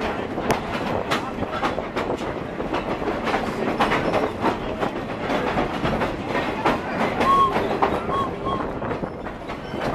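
Excursion train rolling along the track, heard from an open-sided passenger car: a steady rumble of wheels on rail with irregular clicks and clatter. A few short high squeaks come about seven to eight and a half seconds in.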